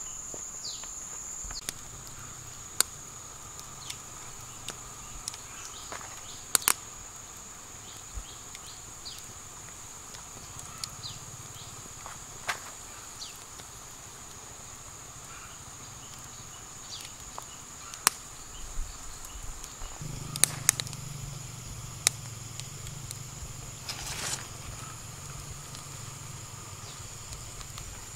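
Forest ambience: a steady high-pitched insect drone, with a small wood campfire crackling in scattered sharp pops. A faint low hum joins about two-thirds of the way through.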